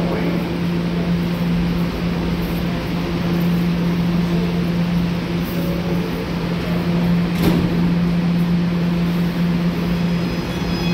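Steady, loud hum of New York City subway train equipment, with one sharp click about seven and a half seconds in. Near the end several whining tones set in as a train starts to run.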